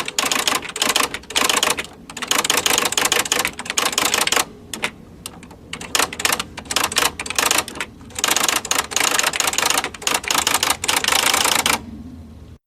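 Electric typewriter typing in fast, dense runs of key strikes, with a short pause about five seconds in and another near the end where only the machine's steady motor hum is left.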